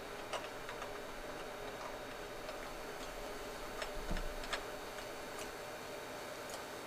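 Light metallic clicks and ticks as bolts on the liquid chamber of a Yamada pulsation dampener are turned by hand, with a small cluster of clicks about four seconds in.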